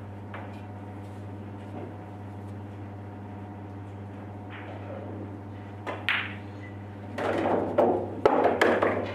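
Pool cue tip striking the cue ball, then a sharp clack of ball on ball. A few seconds of loud clattering and rumbling follow as the struck red 3-ball drops into a pocket and the balls roll.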